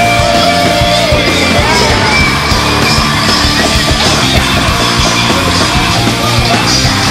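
Loud punk-style rock music with shouted vocals.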